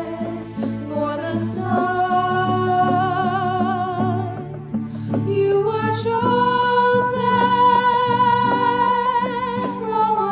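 A woman singing a slow hymn in long held notes with vibrato, accompanied by a strummed acoustic guitar and bongos.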